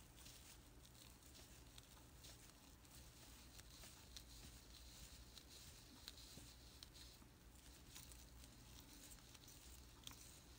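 Near silence: faint rustling and a few light ticks as a crochet hook works chain stitches in sparkly acrylic scrubber yarn.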